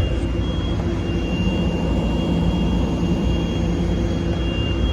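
John Deere 350D excavator's diesel engine running steadily, heard from inside the cab as a low hum with a thin, steady high whine above it.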